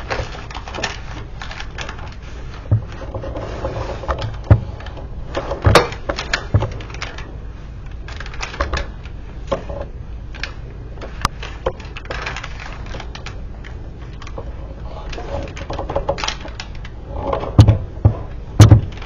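Scattered clicks and taps of a silicone spatula and fingers working thick brownie batter into a parchment-lined metal baking pan, with two louder knocks near the end.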